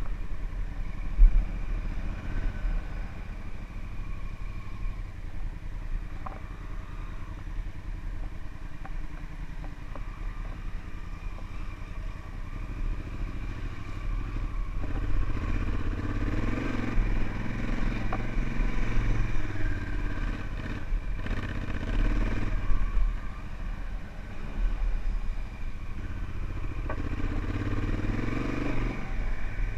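Honda Africa Twin adventure motorcycle's engine running as it is ridden along a dirt trail, its pitch rising and falling with the throttle and getting louder from about halfway through. A single sharp knock about a second in.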